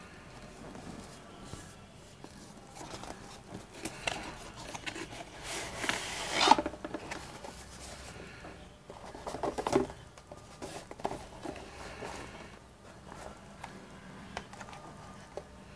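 Cardboard box of a Samsung Galaxy Tab A tablet being opened by hand, with irregular light taps and scrapes of cardboard. About six seconds in comes the loudest sound, a longer sliding scrape as the lid comes off the box, and a few more knocks and scrapes follow near ten seconds as the tablet and inserts are handled.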